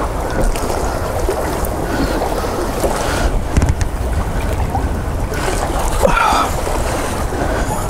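Wind buffeting and hoodie fabric rubbing against a body-worn camera's microphone, over a steady rush of water below, while an angler strains over a pier railing to bring up a fish.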